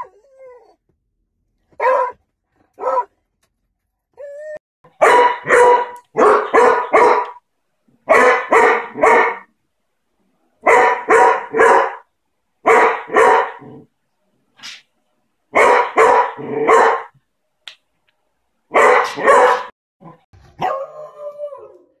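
Beagle barking repeatedly, in quick bursts of two to four loud barks with short pauses between, ending in a drawn-out call that falls in pitch.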